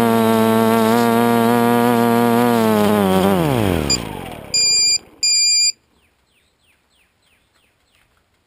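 Multirotor drone's electric motors and propellers running at a steady buzzing pitch, then winding down in a falling whine as it lands and the motors stop. Two short electronic beeps follow.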